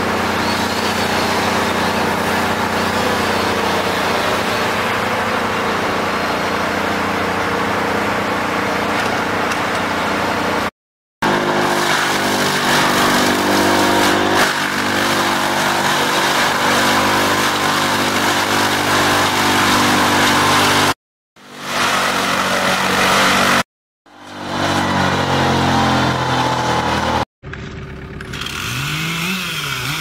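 Loud machinery engines running steadily, with a wood chipper grinding branches in the middle part. The sound cuts out abruptly several times, and near the end a quieter engine revs up and down.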